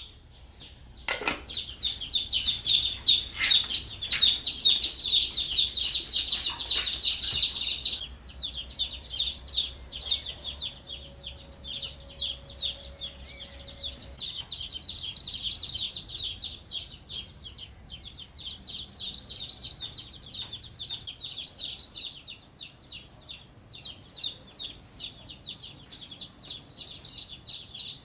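Small birds chirping in quick, high notes, with several louder bursts of chirping.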